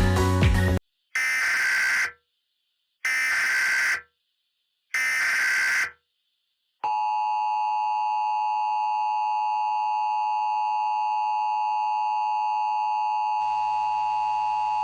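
Emergency Alert System alert tones: three short bursts of the SAME digital header's screeching data, each about a second long and about a second apart. They are followed by the steady two-tone EAS attention signal, held for about eight seconds. Together they mark the start of an emergency alert broadcast.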